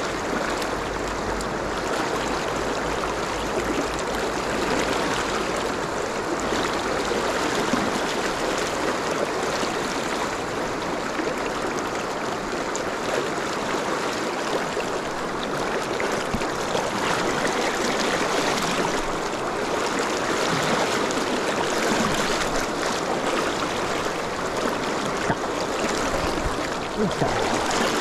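Fast, shallow river riffle rushing steadily close to the microphone.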